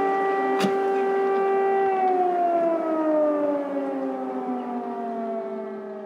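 Air raid siren holding one steady wailing tone, then winding down with a slow fall in pitch and fading out. A single brief click sounds about half a second in.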